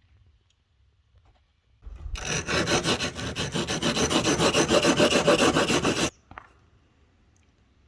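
Fast back-and-forth rasping strokes of hand abrasive work, such as sanding or filing, on a part of an old hand plane. The strokes start about two seconds in, run steadily for about four seconds and stop abruptly.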